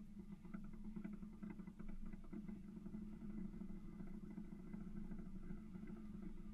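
Boat's outboard motor idling with a steady low hum, faint light ticking over it.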